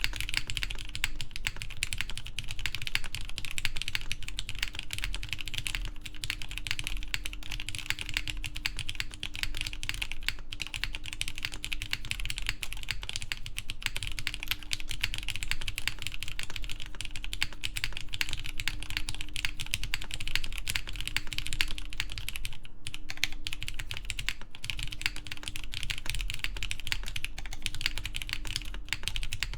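Continuous fast typing on a Matrix 8XV3.0 mechanical keyboard with lubed Cherry MX Black Clear Top linear switches, GMK keycaps and an aluminum plate: a rapid stream of key clicks, pausing briefly about ten seconds in and again near the end.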